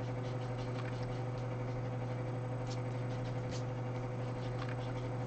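Steady low hum with faint, scattered light taps and scratches of drawing tools on a surface.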